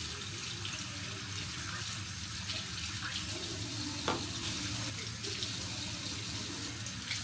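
Water running steadily from a tap into a sink, with a light knock about four seconds in.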